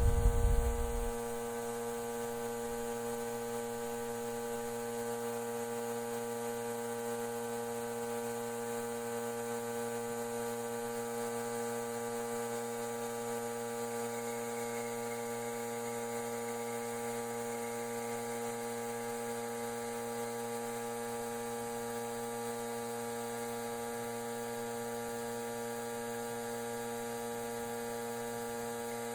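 Air compressor driving a vacuum pump, running with a steady even hum and a faint hiss as it draws power steering fluid out of the reservoir. A brief low thump in the first second.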